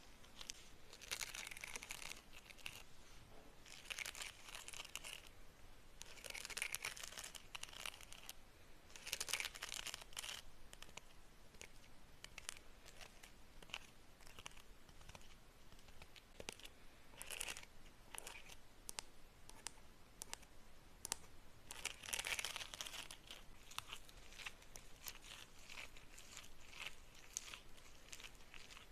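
Crinkling of plastic lollipop wrappers handled close to the microphone, in short bursts of crackling every few seconds.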